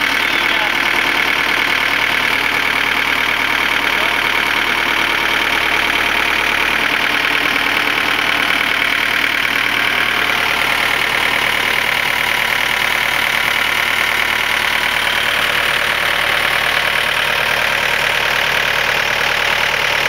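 Compact tractor engine running steadily close by while its front loader works, raising a pallet.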